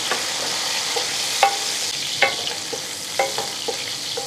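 Onions, tomatoes and green chillies sizzling in hot oil in an aluminium pot while a wooden spoon stirs them, knocking against the metal several times with a short ring.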